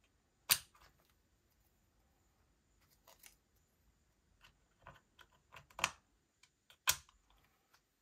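4 GB RAM sticks being pushed back into a Dell Latitude E6440's memory slots: a few sharp clicks and light knocks, the loudest about half a second in and another near the end, as the modules snap into place.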